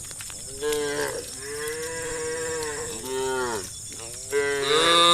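Cows mooing one after another: four moos, a long drawn-out one in the middle and the loudest just before the end.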